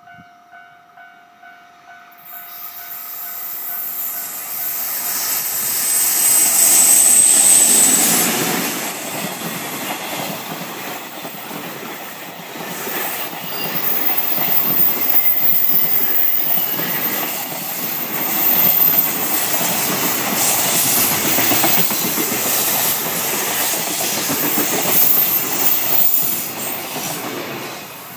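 Container freight train hauled by an EF81 electric locomotive passing close by: a rush of noise builds from about two seconds in and peaks as the locomotive goes by, then the wagons run past with fast wheel clatter over the rail joints and a high hiss, dropping away near the end. A faint repeating ding sounds at the very start before the train arrives.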